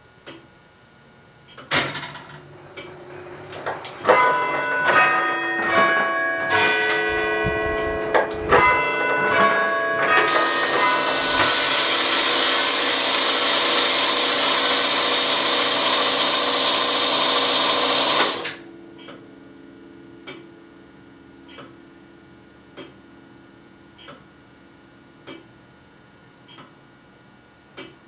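The 1928 tower clock's mechanism runs loudly. It starts with a sudden clatter, whirrs with shifting tones and clicks for several seconds, then becomes a loud steady rush that stops abruptly about 18 seconds in. After that the clock's even ticking comes back, about one tick every 1.2 seconds.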